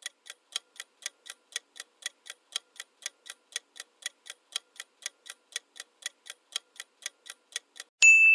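Countdown-timer sound effect: a clock ticking steadily, about four to five ticks a second, alternating louder and softer. Near the end a single loud, bright bell ding rings on, marking time up.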